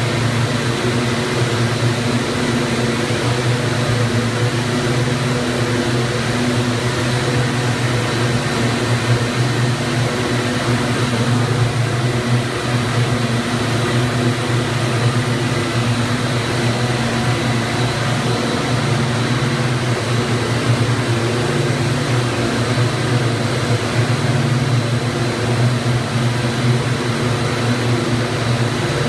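DX268 two-for-one (TFO) twisting machine running, its rows of spindles spinning at speed: a loud, steady mechanical hum with a faint high whine over it.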